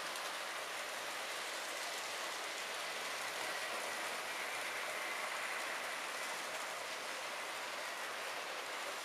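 Model trains rolling on the layout's track: a steady hissing whir with a faint high motor whine.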